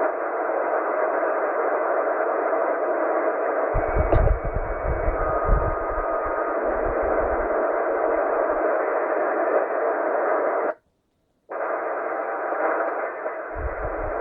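Shortwave receiver static: a steady band-limited hiss from a Tecsun PL-990 on the 4.6 MHz band with no signal being spoken. Faint brief whistles of carriers and a few low thumps come in the middle, and the audio cuts out completely for under a second near the end.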